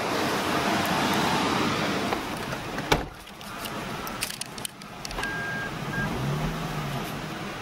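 Lexus IS200 car door shutting with a single sharp thud about three seconds in, after which the loud steady rushing noise outside is muffled. Later there is a short electronic beep and a low steady hum inside the car's cabin.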